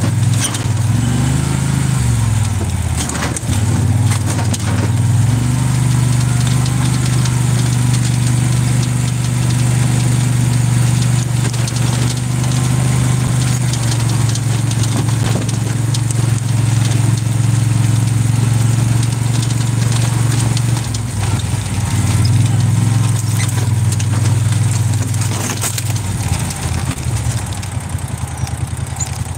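Engine of a small utility vehicle running under way, a steady drone with a dip and rise in pitch a second or two in, along with light rattles from the vehicle. The engine note eases off near the end as the vehicle slows.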